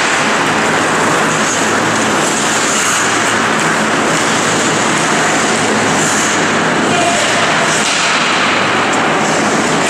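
Ice hockey play: skate blades scraping on the ice and sticks working the puck, as a dense steady noise with a few sharper scrapes, over a steady low hum.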